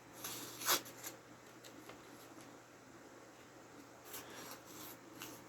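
Machete edge slicing in a sharpness test: one short, scratchy swish about three-quarters of a second in, a few faint scratches just after, and more light scratches near the end.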